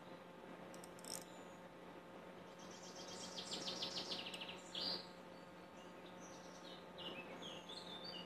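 Wild birds singing: a fast trill of repeated high notes a few seconds in, a sharp single call just after, and scattered short chirps near the end, over a faint steady hum.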